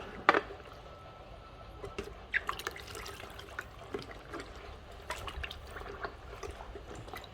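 A cloth being rinsed by hand in water: irregular splashes, sloshing and drips, with one sharp knock about a third of a second in.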